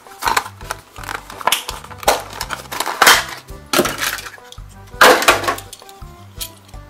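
Stiff clear plastic blister pack crackling and crinkling as it is pulled open by hand, in about six loud crackles, the loudest about three and five seconds in, over background music with a steady bass line.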